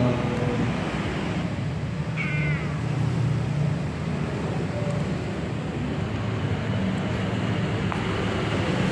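A cat gives one short meow, falling in pitch, about two seconds in, over a steady low hum of background noise.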